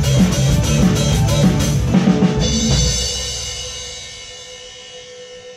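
Drum kit played live along with a pop song's recording, bass drum and snare driving the beat, ending on a last hit about two and a half seconds in. The cymbals and a held note then ring on and fade, leaving one steady tone.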